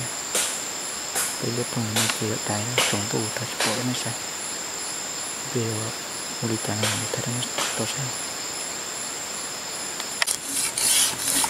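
Chorus of night insects: steady high-pitched trills, one of them pulsing. A man's voice speaks low at intervals, and clicks and rustles rise near the end.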